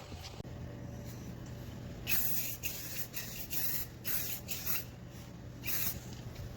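Aerosol spray can hissing in several short bursts, starting about two seconds in.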